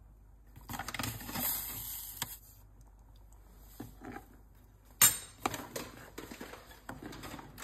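Metal spoon stirring a stainless-steel pot of coconut-milk soup, clinking and scraping against the pot, with one sharp clink about five seconds in.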